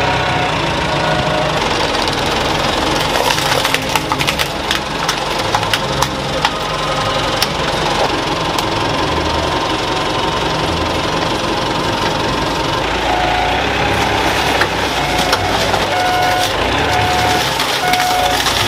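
Forklift engine running under load while wrecked car bodies crunch and crack as the crushed car is pressed onto the scrap stack. From about two-thirds of the way in, a backup alarm beeps steadily about once a second.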